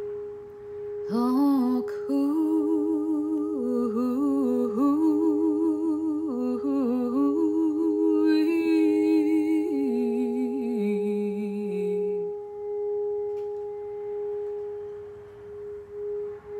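Metal singing bowl sung by rubbing a wooden mallet around its rim, holding one steady ringing tone. From about a second in until about twelve seconds in, a woman's wordless singing wavers in pitch over the bowl's tone; after that the bowl rings on alone.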